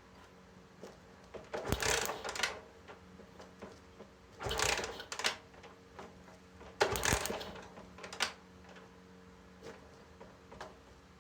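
Four short bursts of mechanical clatter a second or two apart, over a faint steady hum.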